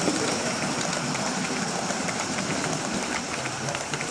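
Model railway train of maroon coaches running past on the track: a steady rumble of wheels on rail, with light clicks from the rail joints.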